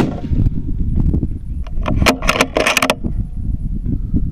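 A precision rifle shot right at the start, ringing out briefly, then the rifle's bolt being worked for the next shot: a quick run of sharp metallic clicks and clacks about two seconds in.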